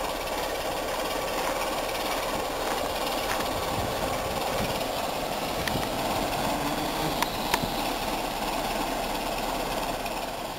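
A railway locomotive running steadily, a continuous even noise, with a few sharp clicks between about six and seven and a half seconds in.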